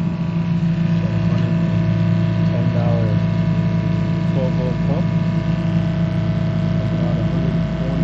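Kohree water pressure pump running, a steady hum with several steady tones, as it pumps water through the tankless pool heater.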